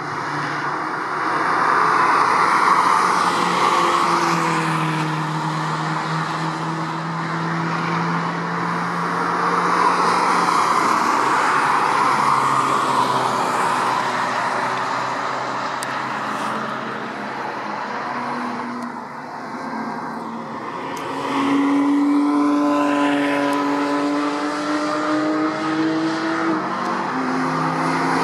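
Cars driving past on a race circuit: engine notes rising and falling with the changes of speed and gear, over a steady road and tyre noise, the sound swelling and fading several times as cars come and go.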